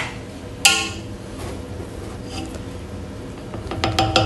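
A single ringing clink about half a second in, then near the end a few quick scrapes and knocks of a slotted spatula against a metal cooking pot as cooked rice is scooped out.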